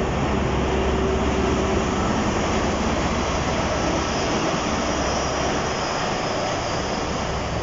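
Diesel engine of a Class 43 HST power car running as the locomotive moves slowly past, with a steady engine drone and rail rumble.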